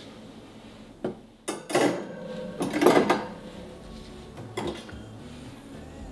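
Expandable metal wire kitchen shelf rack clinking and rattling in a few short bursts as its two sliding wire sections are pulled apart and pushed together to adjust its length.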